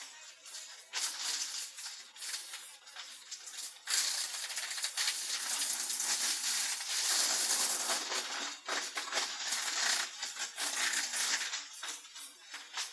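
Drum wood chipper chipping wood: a rough crackling crunch that grows denser and louder about four seconds in, then thins out again about four seconds later.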